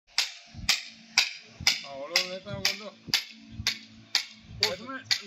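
A song with a sharp, clicking percussion beat about twice a second over a steady low drone, with a singing voice coming in about two seconds in.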